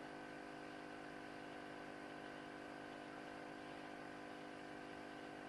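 Faint steady electrical hum with several constant tones over a light hiss, unchanging throughout: room tone.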